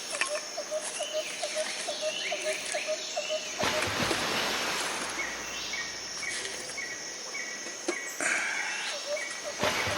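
Outdoor ambience of insects and small animals: short chirping calls repeated about three times a second over a steady high insect hum. From about a third of the way in, a broad rushing noise comes up and a run of higher chirps follows at about one a second.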